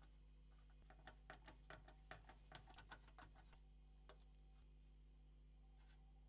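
Near silence over a steady low hum, with a quick run of faint light clicks and taps from about one to three and a half seconds in and a single tick near four seconds.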